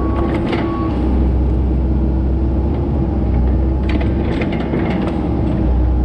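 Heavy diesel earthmoving machine running steadily under load, with a backup alarm beeping twice in the first second. About four seconds in comes a run of metallic clanks and squeals from the machine's steel tracks and linkage.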